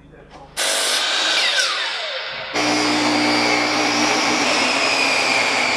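Power saws cutting lumber. A DeWalt sliding miter saw starts up and cuts, and its blade winds down with a falling whine. About two and a half seconds in, a table saw runs steadily as a board is ripped lengthwise through it.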